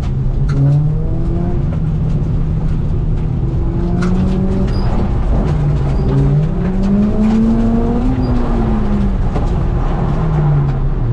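Nissan 350Z's V6 engine being driven hard, its revs climbing and dropping several times and rising highest about eight seconds in.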